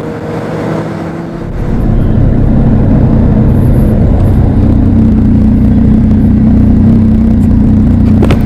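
Motorcycle engine under way: a lighter, slightly rising note for the first second or so, then from about two seconds in a louder, steady low engine drone with rushing noise. A sharp click near the end.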